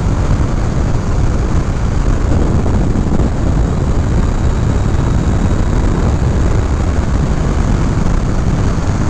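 Riding noise of a Honda CBR500R sport bike cruising at road speed: a steady rush of wind over the microphone with the parallel-twin engine running underneath.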